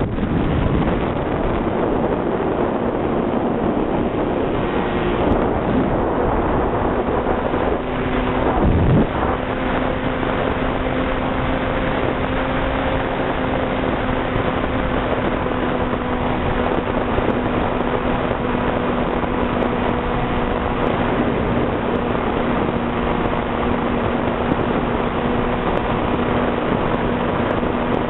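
Radio-controlled model plane's motor and propeller running, heard from the camera on board under heavy wind rush over the microphone. The steady hum shifts in pitch a few times, with a quick dip and rise about nine seconds in.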